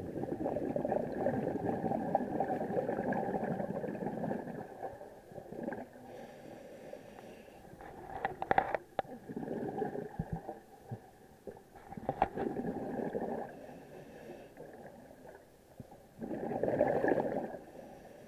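A scuba diver's exhaled breath bubbling out of the regulator next to an underwater camera, in repeated bursts. There is a long burst at the start, shorter ones around the middle and a strong one near the end, with a few sharp clicks and fainter stretches between breaths.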